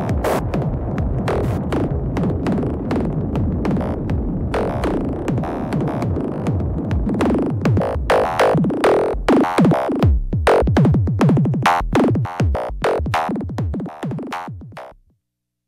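Electronic music from a Make Noise semi-modular synthesizer set (0-Coast, Strega, 0-Ctrl): a dense patch that, about halfway through, breaks into a rapid run of short plucked notes, which fades and stops just before the end.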